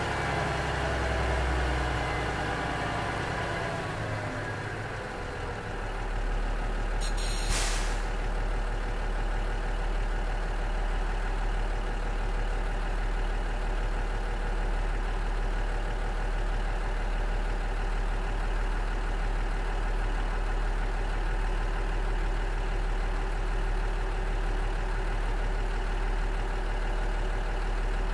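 Cummins DMF14HZ diesel engine of a KiHa 47 railcar, its revs falling away over the first few seconds after being revved up, then settling into a steady low idle. A brief hiss about seven seconds in.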